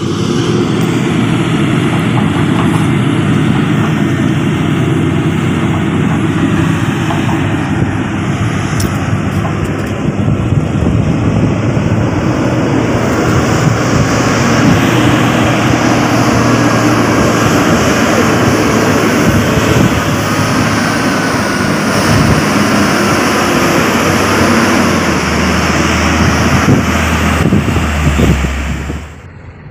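Hino 500 dump truck's diesel engine running loud and steady as the truck drives along a rough dirt haul road. A deeper engine note comes in during the last few seconds.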